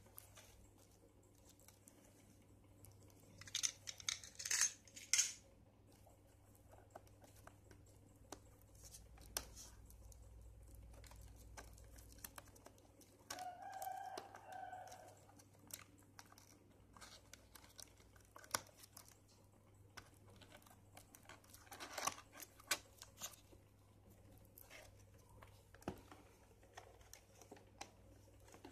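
Plastic shrink wrap on a cardboard toy box being cut and torn open by hand: crinkling, tearing bursts about four seconds in and again a little past twenty seconds, with small clicks and taps of handling between. A short pitched call sounds once about halfway through.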